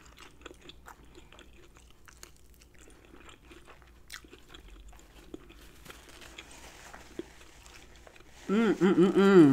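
Close-miked chewing of crispy battered fried chicken wings: faint, irregular crunches and mouth clicks. Near the end, a loud hummed 'mm-mm-mm' of enjoyment, repeated three or four times in about a second.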